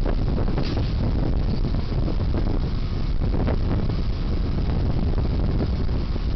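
Wind buffeting an outdoor camera microphone: a steady low rumble that swells and dips unevenly.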